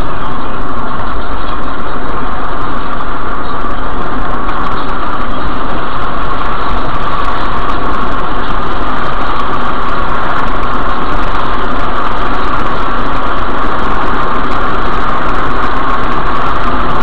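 Steady road and engine noise inside a car cruising on a highway, picked up loud by the dashcam's microphone, with no breaks or impacts.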